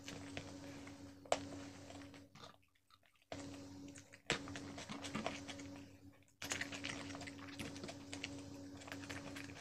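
Close-miked eating sounds from a person chewing crispy fried chicken, mouth smacking and finger-licking, full of small crackly clicks. It drops out to near silence twice for under a second.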